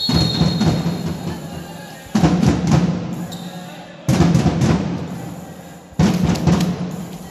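A heavy drumbeat struck about once every two seconds, each beat ringing out and fading slowly, with voices underneath. A shrill whistle blast, most likely the referee's, trails off in the first second.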